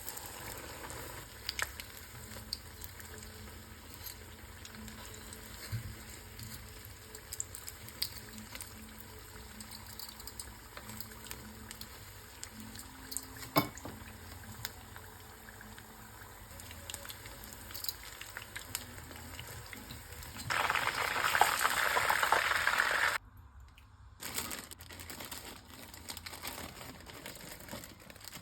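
Oil sizzling as lumpiang shanghai spring rolls fry, with scattered pops and crackles. About three quarters of the way through, a much louder hiss lasts nearly three seconds and cuts off abruptly.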